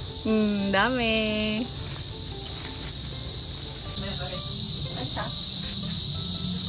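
Steady, high-pitched chorus of insects, which becomes louder about four seconds in.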